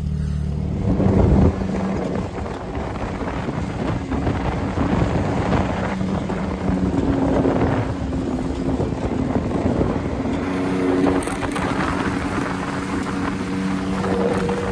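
A vehicle engine running steadily, with heavy wind buffeting the microphone.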